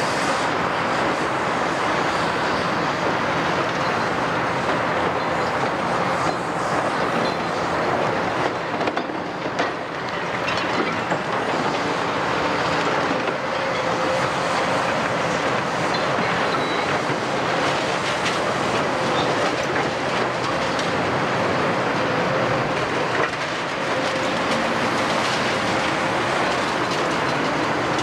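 Demolition excavators at work: diesel engines running under a continuous crunching, clattering din of concrete being broken and rubble and steel scrap falling, with occasional squeals of metal.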